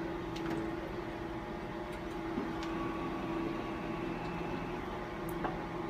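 Steady machine hum from equipment in the room, with a few faint clicks and taps.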